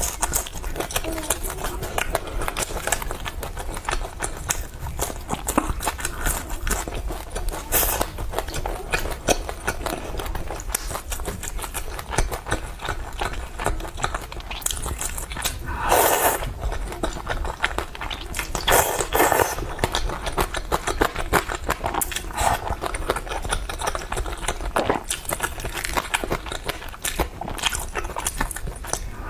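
Close-up eating sounds of spicy malatang with noodles: chewing with many small clicks, and slurps of noodles, the loudest about 16 and 19 seconds in.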